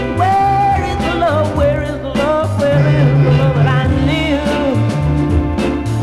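A 1967 soul single playing from a vinyl record: a band with bass and drums under a bending, wavering lead melody.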